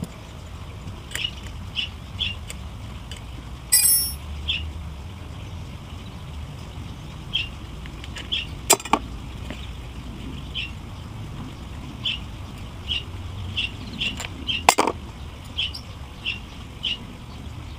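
A small bird chirping: short high notes repeated irregularly. A few sharp knocks cut in, one with a metallic ring about four seconds in, and two louder ones about nine and fifteen seconds in.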